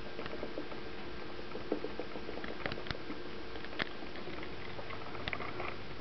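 Small scattered taps and scratches, a cockatiel's feet pattering on carpet as it walks, a few sharp ticks spread irregularly over a steady hum.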